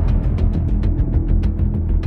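Dark, dramatic background music with a deep drum-heavy low end and a fast ticking percussion beat, about six or seven ticks a second.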